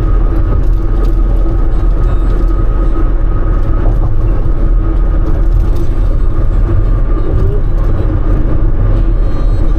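Cargo van cabin noise at road speed: a steady low rumble of engine and tyres on the road, with a faint steady whine over it.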